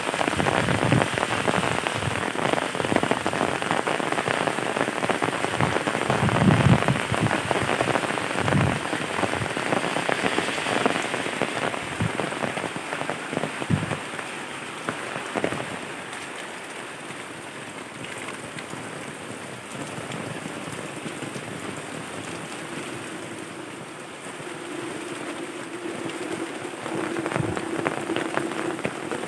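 Rain falling steadily on surfaces, with scattered heavier drops striking; the rain grows lighter about halfway through. A faint steady hum comes in near the end.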